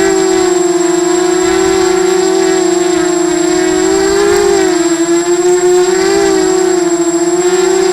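Brushless motors and propellers of a 250-size FPV racing quadcopter in flight: a loud, steady buzzing whine whose pitch rises and dips slightly with throttle changes.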